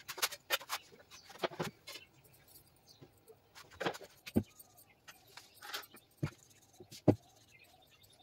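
Steel kitchen utensils clinking and knocking as they are handled: irregular clicks and clatter with a few dull thumps, the loudest about seven seconds in.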